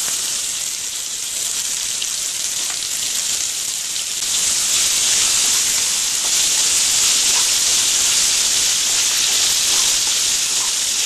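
Fresh green peas sizzling in hot oil with cumin seeds in a frying pan as they are stirred with a wooden spatula; the sizzle grows louder about four seconds in.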